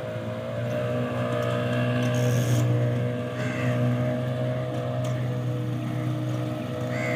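An engine running steadily at an even pitch, a constant motor hum.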